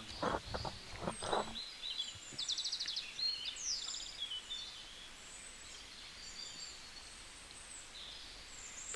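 Small birds chirping and calling, with two rapid trills about two and a half and three and a half seconds in, over a faint steady background hiss.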